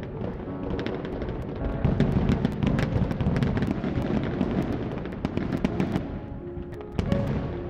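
Fireworks display: a dense run of crackling reports from bursting shells over a low rumble of booms, with music underneath.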